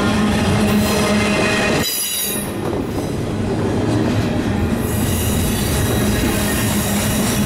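Double-stack intermodal well cars rolling past, steel wheels running on the rails with a steady rumble. A short high-pitched wheel squeal comes about two seconds in.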